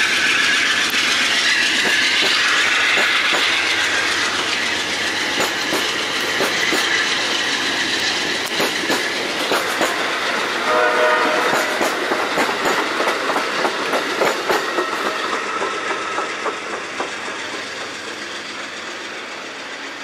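Amtrak passenger coaches rolling past close by: a steady rumble of steel wheels on rail with a quick clickety-clack over the rail joints, and a short pitched tone about halfway through. The sound fades as the last car moves away.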